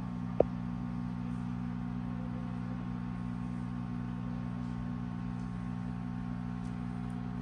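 Steady low electric hum, typical of aquarium equipment such as a filter or air pump running beside the tank. A single sharp tap with a brief ringing tone comes about half a second in.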